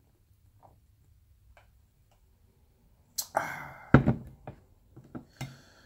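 Quiet swig from a glass 40-ounce malt liquor bottle, then a breathy exhale about three seconds in, and a second later a single hard knock as the glass bottle is set down on the table, followed by a few lighter clicks.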